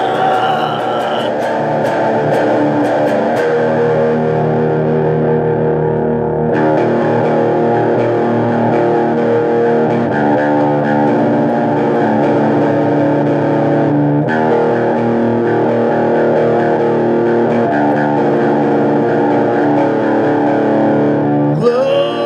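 Instrumental passage of a heavy metal song: distorted electric guitar playing with full band accompaniment. A sung line comes back in near the end.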